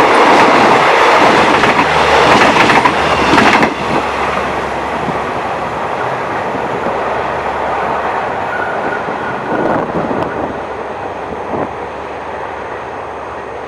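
Passenger train carriages rolling past with the clickety-clack of wheels over rail joints, loud for the first few seconds, then dropping suddenly and fading as the train moves away.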